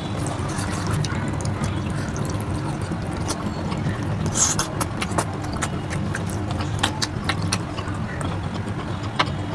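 Close-up eating sounds of a man eating rice and oily mutton curry by hand: fingers mixing the wet rice and curry on a steel plate, then chewing with lip smacks, heard as many short wet clicks.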